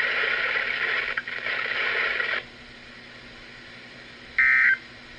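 A hiss of noise that cuts off sharply about two and a half seconds in. Near the end comes a short, loud burst of data tone: the first of the three SAME end-of-message bursts that close a NOAA Weather Radio Required Weekly Test.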